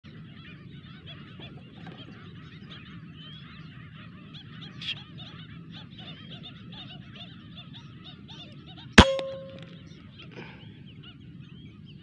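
Many birds calling over one another throughout, then a single sharp shot from a PCP air rifle about nine seconds in, followed by a brief ringing tone.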